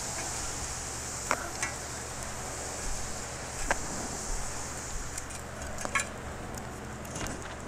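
Hot titanium powder smothered under FEM-12 SC extinguishing agent hissing as a screwdriver stirs it in a steel trough. A few sharp taps and scrapes of the tool on the steel stand out, and the hiss dies away after about five seconds as the steam stops.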